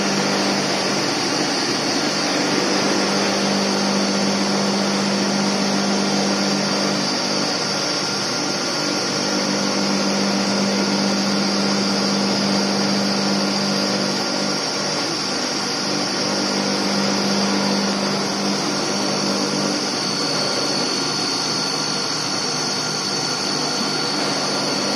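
Stainless-steel colloid mill running, its high-speed rotor and stator grinding a paste: a steady motor whine over a low hum. About three-quarters of the way through, the low hum fades and a higher steady tone comes in.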